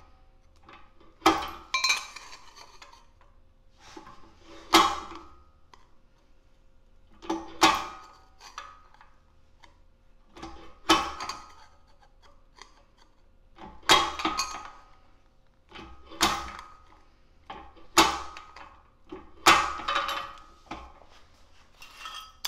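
Eastwood bench-mounted lever shear cutting a steel disc: a sharp metallic snap with each pull of the handle, about ten cuts two to three seconds apart, each with a short ring.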